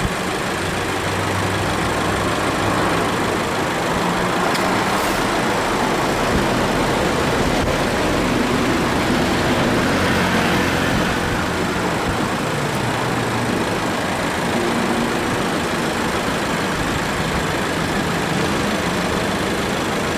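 2018 Subaru Forester engine idling with the air-conditioning compressor cycling on. The compressor makes an abnormal noise as it kicks in, which the owner takes for slight compressor wear that has also weakened the cooling.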